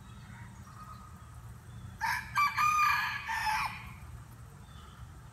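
A rooster crowing once, about two seconds in: a crow of several linked notes, under two seconds long, that drops in pitch at the end.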